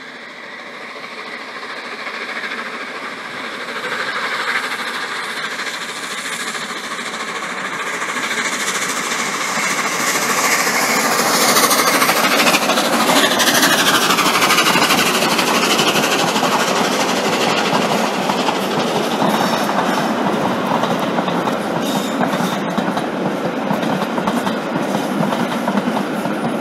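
Steam locomotive 60163 Tornado, an LNER Peppercorn A1 Pacific, with its train approaching and passing close by. The sound grows steadily louder to a peak about halfway through, where the pitch falls as the engine goes past. After that comes a steady, loud rumble of the coaches rolling by, with wheels clicking over the rail joints near the end.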